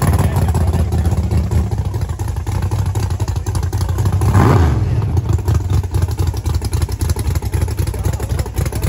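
Loud rumbling of gasser drag cars' engines running in the staging lanes, a fast, rough firing pulse with a deep low end. About halfway through, one engine's sound swells and then fades.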